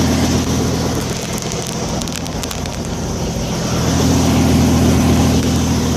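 Tour helicopter's engine and rotor running, a steady low hum with a fast pulsing beat; it eases a little in the middle and builds again.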